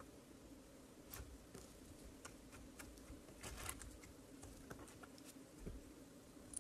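Faint, sticky clicks and small pops of glossy slime being pressed and folded between fingers, scattered irregularly with a short cluster about three and a half seconds in, over a low steady room hum.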